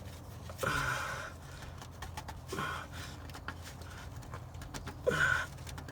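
A man grunting and breathing hard with effort three times, about a second in, in the middle and near the end, as he tightens the oil drain plug from under the truck.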